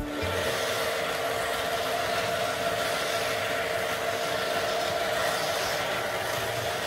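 O scale model diesel locomotive and boxcars running on three-rail track: a steady whir and rumble of motors and wheels, with a constant hum.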